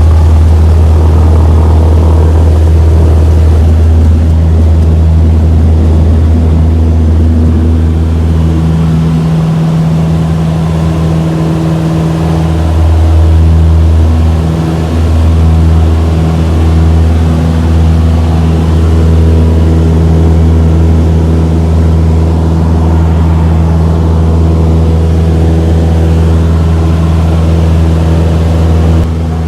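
Cessna 172's piston engine and propeller running steadily with a loud low drone, the pitch wavering for a few seconds partway through.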